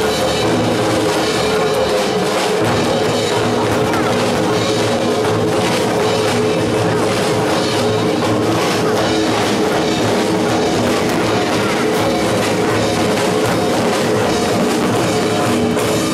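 Loud rock music from a live band, with a heavy drum kit and bass drum driving the beat, playing without a break.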